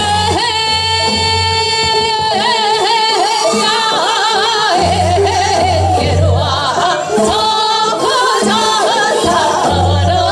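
Two women singing Seodo sori, the Korean folk song of the northwestern provinces, into microphones over amplified accompaniment with a pulsing bass. A long high note is held for about two seconds at the start, then the voices move in wavering, heavily shaken ornaments typical of the style.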